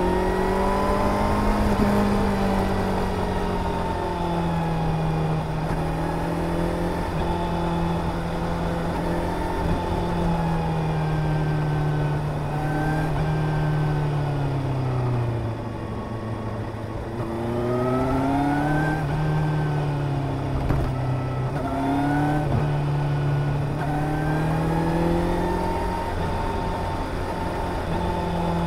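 Suzuki GSR 750's inline-four engine running under way, its pitch rising and falling as the rider rolls off and accelerates through the bends. About halfway through it drops to its lowest and quietest, then picks up again with several short rises.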